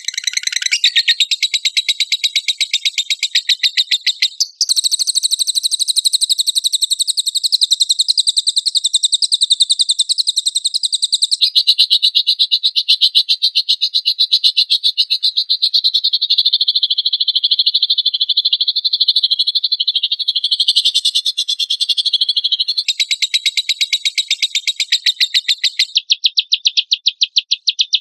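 Lovebird 'ngekek': a long, loud, high chattering trill of very rapid repeated notes that runs on without a break, changing in character a few times.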